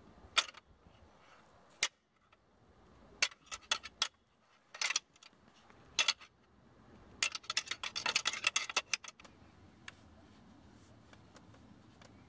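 Deer antler tines knocked and clicked together in gloved hands: single sharp clicks every second or so, then a quick run of rattling clicks for about two seconds starting around seven seconds in.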